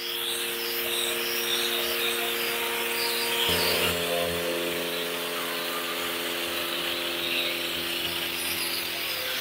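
Nilfisk Core 150 electric pressure washer running with a steady motor hum while foam sprays from the lance with a continuous hiss. The hum shifts to a different, lower set of pitches about three and a half seconds in.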